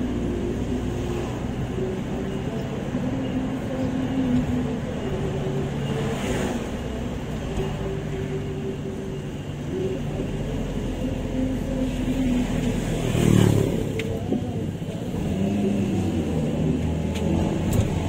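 A motor vehicle running on the road: a steady engine hum whose pitch shifts every few seconds over road noise, with a brief louder swell about 13 seconds in.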